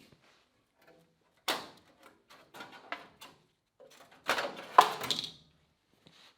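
A series of irregular knocks and clunks, with a loud one about a second and a half in and a denser burst of them between about four and five seconds in.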